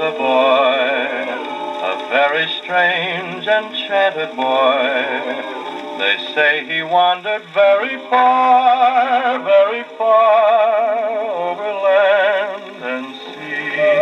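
A 78 rpm shellac record playing on an HMV 102 wind-up acoustic gramophone: a male crooner singing with a backing vocal group and no instruments, the notes held with a wide vibrato. The sound is thin and narrow, with no deep bass and nothing above the upper middle range.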